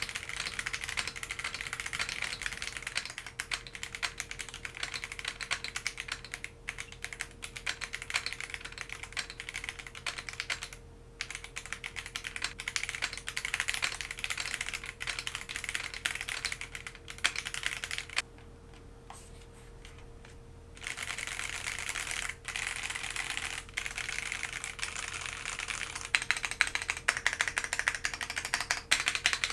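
Typing on a GamaKay K61 Pro gasket-mount 60% mechanical keyboard with Gateron Yellow linear switches: a fast, continuous run of key clacks. It breaks off briefly about eleven seconds in and again for about two seconds around the twentieth second, and the clacks grow louder near the end.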